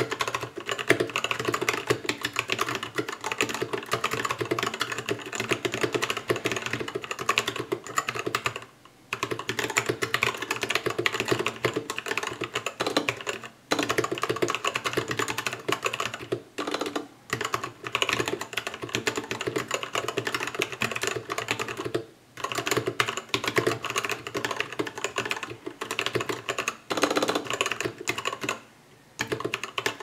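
Fast touch-typing at about 80 words a minute on a custom 65% mechanical keyboard with Gateron Brown tactile switches and XDA-profile dye-sub keycaps: a dense, continuous clatter of keystrokes, broken by a few short pauses.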